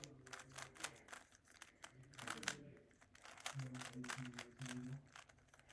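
Plastic speed cube being turned rapidly during a solve: a dense, irregular run of quick clicks and rattles from its layers.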